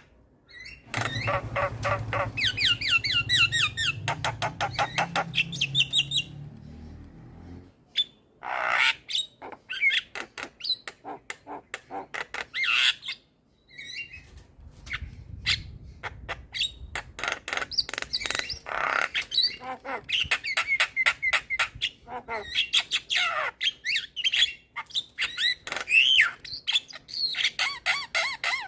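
Javan myna singing a long, varied song: fast rattling runs of repeated notes, clicks, short whistled slides and harsh squawks, broken by a few brief pauses.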